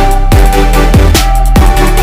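Loud electronic background music with a heavy beat and deep bass drum hits that drop in pitch.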